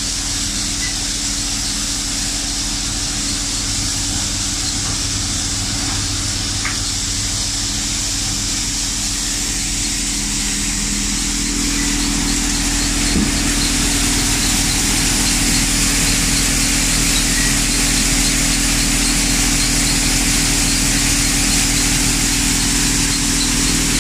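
Basket-model grain thresher running steadily while threshing green gram (moong) plants: a constant machine hum with a steady hiss, a little louder from about halfway through.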